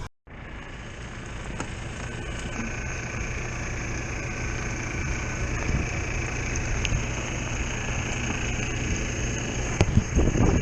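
Steady rumble and hiss inside a truck cab with the engine idling, with a few knocks near the end.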